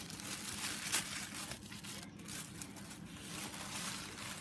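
Tissue paper rustling and crinkling as hands unfold and pull open a wrapped sheet, with a sharper crackle about a second in.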